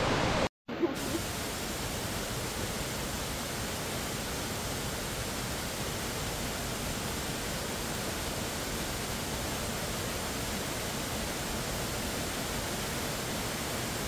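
Steady, even rush of a tall waterfall's falling water, with a very short break in the sound about half a second in.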